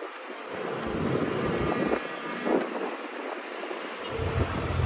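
Bus engine and road noise heard from aboard the moving bus, steady, with a deep low drone that comes up about four seconds in.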